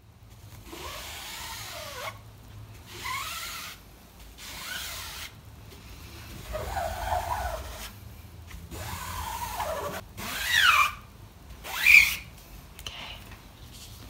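A screen-printing squeegee dragged in repeated strokes across an ink-flooded screen mesh, pushing fabric ink through onto the cloth beneath. Each stroke is a scraping rub with squeaks that slide up and down in pitch. The two loudest, sharpest squeals come near the end.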